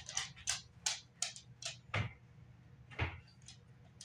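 A Labrador Retriever's claws clicking irregularly on a wood-plank floor as she walks, with a couple of soft thumps about two and three seconds in.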